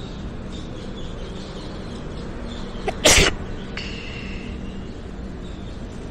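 Passenger train coaches rolling past with a steady rumble, broken about three seconds in by one sudden, loud, short burst of noise lasting about a third of a second.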